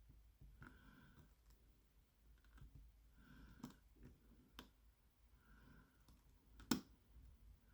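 Faint clicks and light scraping of a lock pick working the pins of a lock cylinder under tension, with one sharper click about two-thirds of the way through.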